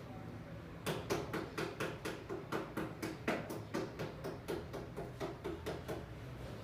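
A steady series of sharp clicks or knocks, about four a second, starting about a second in and stopping near the end.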